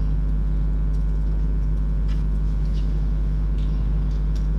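A steady low electrical hum, with a few faint scattered clicks of typing on a laptop keyboard.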